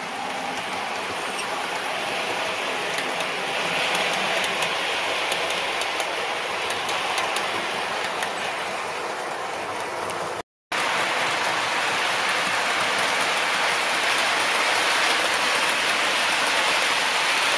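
OO gauge model trains running on the layout's track: a steady rolling rattle of metal wheels on the rails with faint ticking, louder around four seconds in as a train passes close. The sound cuts out for a moment about ten seconds in, then the rolling continues.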